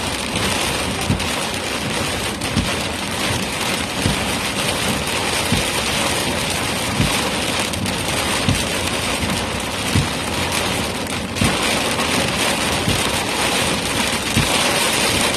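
Heavy rain pelting a vehicle: a steady dense hiss with many scattered, louder drop impacts.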